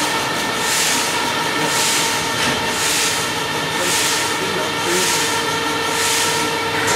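Schiwa industrial slicing and conveyor line running steadily, with a constant mechanical whine and a hiss that swells about once a second.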